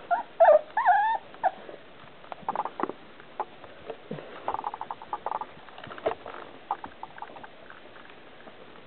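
Four-week-old Goldendoodle puppies yipping and whining in short high cries that rise and fall, packed into the first second and a half, followed by scattered short scuffles and small sounds.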